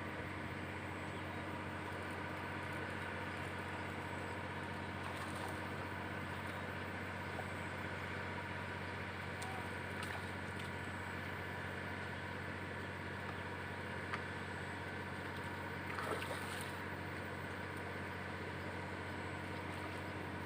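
Steady drone of a small engine running at a constant speed, with a few faint clicks.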